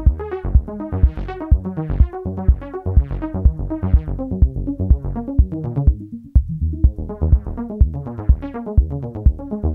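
Electronic music from an E-mu Audity 2000 synthesizer module, submixed through a Roland M-160 line mixer with outboard effects: a rhythmic pattern of pitched synth notes with drum-machine-style bass hits underneath. The bass drops out briefly about six seconds in, then the pattern comes back.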